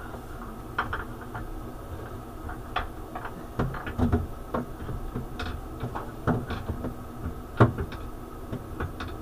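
Irregular metallic clinks and knocks of tools and parts being handled on a Tormach CNC mill during a Y-axis ball screw replacement, with a louder knock about three-quarters of the way through, over a steady low hum.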